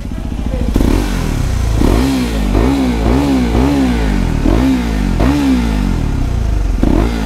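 KTM RC 390's single-cylinder engine, fitted with an aftermarket bend pipe, blipped repeatedly: about eight quick revs rising and falling over a steady idle. The exhaust runs loud now that the bend pipe is properly seated and no longer leaking air.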